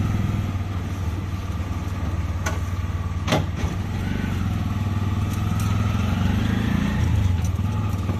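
Auto-rickshaw's small engine running steadily while the three-wheeler drives along, heard from inside its open cabin, with a couple of sharp knocks a few seconds in.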